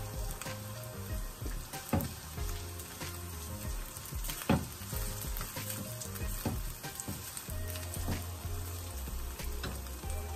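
Chopped onion and garlic sizzling in olive oil in a glazed clay cazuela, stirred with a silicone spatula. Scattered clicks and scrapes of the spatula against the pot come through the sizzle, the sharpest about two seconds and four and a half seconds in.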